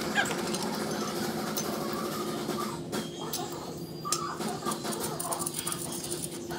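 Steady workshop hum with scattered light clicks and a few short squeaks as a coilover assembly is handled at the car's rear wheel well.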